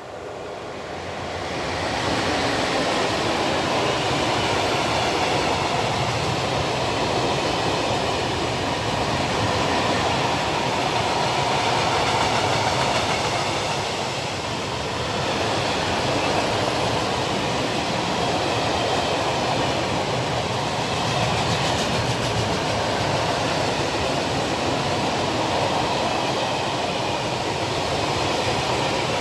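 Freight train passing close by: the rumble rises over the first two seconds, then the wagons roll past in a loud, steady stream of rolling noise with some clickety-clack of wheels over rail joints.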